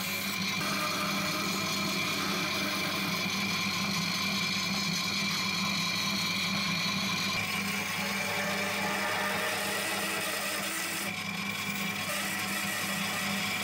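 Bandsaw running steadily with a constant hum and high whine, its blade cutting through thick wooden blanks.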